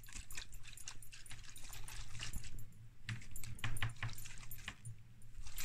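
Liquid sloshing inside the sealed sensor bottle of a Geometrics G-816 proton magnetometer as it is shaken and tilted by hand, an irregular run of splashes and light knocks.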